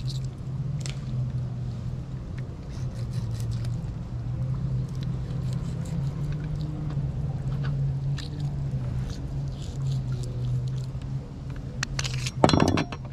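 A fillet knife works along a cero mackerel fillet on a plastic cutting board, skinning it, with faint scrapes over a steady low hum. Near the end a duck quacks loudly.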